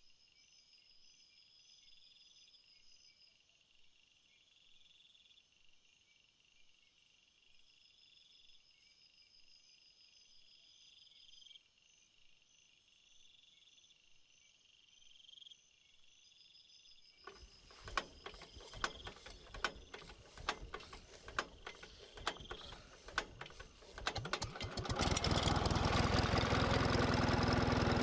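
Faint, high, rhythmic chirping of crickets. About two-thirds of the way in, a run of sharp knocks and clicks starts, and near the end a loud, steady machine noise with a low hum takes over.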